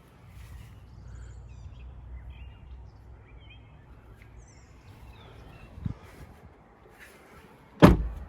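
Birds chirping faintly over quiet outdoor background, with a soft knock about six seconds in and a loud thump near the end.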